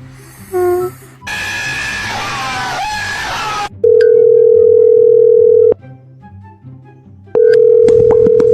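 A loud, steady electronic beep tone, held about two seconds and then sounded again about a second and a half later, over background music. Before it come a short pitched cat-like call and a couple of seconds of loud noisy sound.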